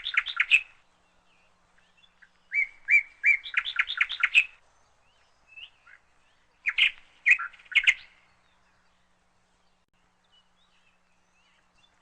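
A songbird singing short repeated phrases: a few clear, even notes followed by a quick run of higher notes, a new phrase every few seconds.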